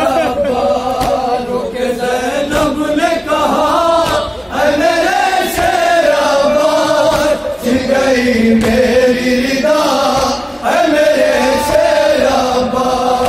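A group of men chanting a noha, a Shia lament for Muharram, in unison at microphones without instruments. The lines run about three seconds each, with short breaks between them.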